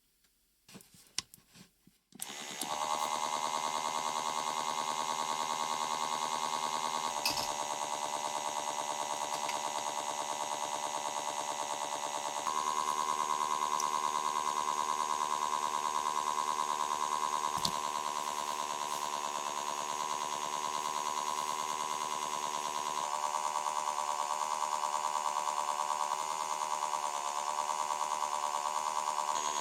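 A few clicks, then the motor of a Daiso mini washing machine starts about two seconds in and runs with a loud, steady electric hum, churning the slime mixture; its pitch shifts slightly about twelve seconds in and again near twenty-three seconds.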